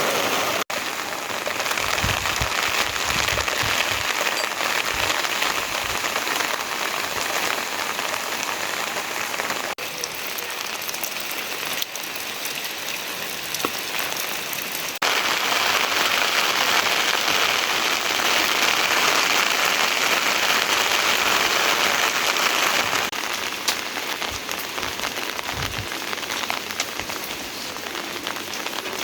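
Steady rain falling, a dense even hiss, its loudness stepping up or down abruptly a few times.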